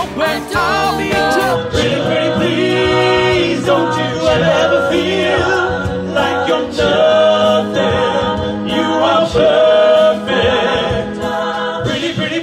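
Male vocal group singing a cappella in close harmony, several voices holding chords together. A beat sounds under the voices for the first second or so, then stops.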